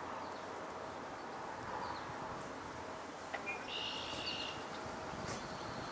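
Steady outdoor background hiss by a pond, with one short, high bird call about four seconds in.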